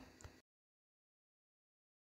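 Near silence: faint room tone for under half a second, then total silence.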